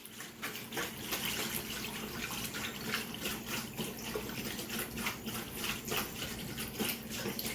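A whisk beating cornstarch into a thin liquid of heavy cream and chicken stock: rapid, steady strokes with a sloshing, liquid sound.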